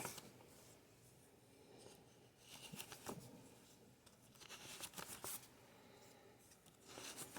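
Faint rustling of paper dollar bills being leafed through by hand, in three short spells about two seconds apart.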